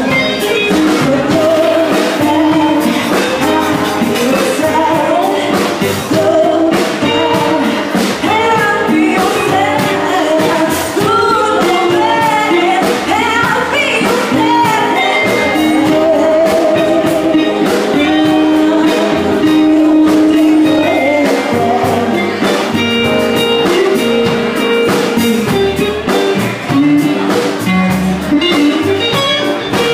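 Live band playing: a woman sings into a microphone over electric guitar and drums.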